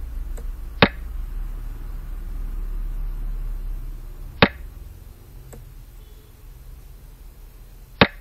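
Three sharp clacks, each a xiangqi piece being set down, spaced about three and a half seconds apart over a low steady hum.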